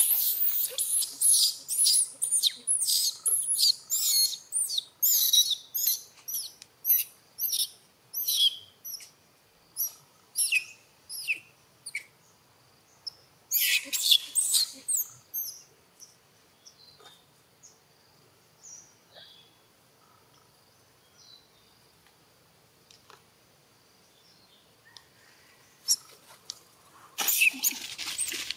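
Young macaque crying: a rapid run of short, high-pitched cries over the first twelve seconds or so, another burst about fourteen seconds in, then sparse fainter cries and a final burst near the end. These are the distress cries of a weaning infant asking its mother for milk.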